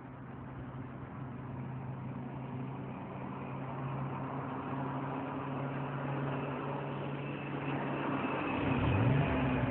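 A car engine idles steadily, growing slowly louder, and briefly rises and falls in pitch about nine seconds in.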